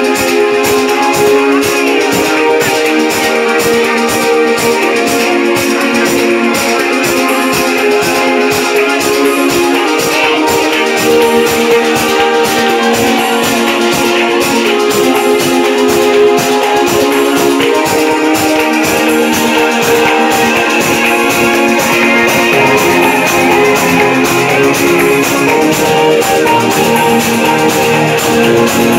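A DJ set of dance music played loud over a club sound system, with a steady beat.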